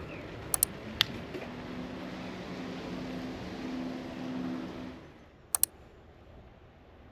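Steady rushing noise of a bicycle ride along a street, broken by a few sharp clicks about half a second and a second in. About five seconds in it drops to a quieter hush, with a quick double click.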